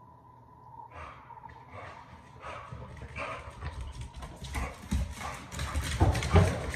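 Dog's claws clicking and paws padding on a ceramic tile floor in quick, uneven steps, growing louder as the dog comes close, with a few heavier thumps near the end.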